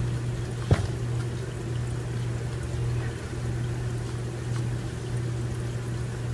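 Virtual aquarium video playing from a laptop's speakers: a steady low hum under a watery trickling hiss. A single sharp knock just under a second in is the loudest sound.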